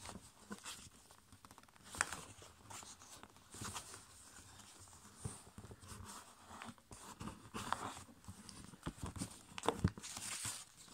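Sheet of A5 copy paper rustling and crinkling as fingers fold it and press creases into a paper airplane, with irregular small crackles. Two sharper clicks stand out, about two seconds in and near the end.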